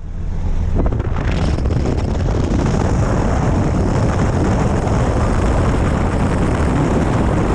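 Small single-engine high-wing plane's piston engine running on the ground, a steady low drone under the rush of propeller wash buffeting the microphone.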